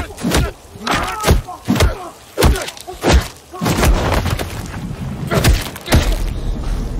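A rapid series of heavy punches and body blows from a film fight, each a sharp thud, about a dozen in six seconds, with men's grunts and cries between them. A low rumble carries on after the last blow.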